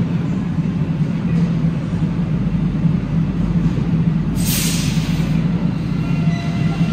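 Alstom NS-93 rubber-tyred metro train at the platform with a steady low hum, a sharp hiss of released compressed air about four and a half seconds in, and a whine of several tones from its traction equipment starting near the end.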